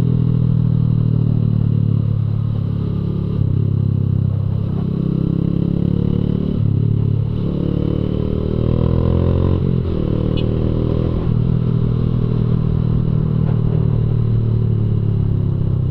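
2015 Honda CG Fan 150's single-cylinder four-stroke engine running loud through an aftermarket Fortuna Mini Trioval F1 exhaust while riding. Its pitch climbs and drops back about four times as it accelerates and changes gear.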